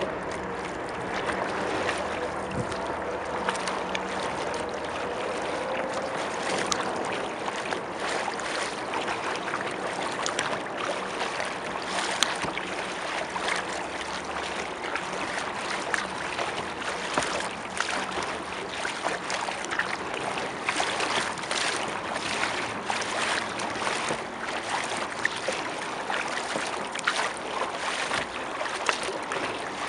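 Kayak paddling close on the water: steady lapping and trickling against the hull, with frequent small splashes and drips from the paddle strokes, busier in the second half.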